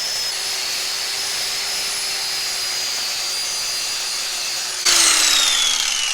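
Electric angle grinder with a wire wheel running steadily at full speed. About five seconds in it turns louder, then the motor is switched off and winds down with a steadily falling whine.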